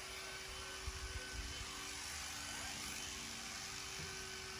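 Steady machine hum with a few steady tones over a hiss, and a few soft low thumps about a second in.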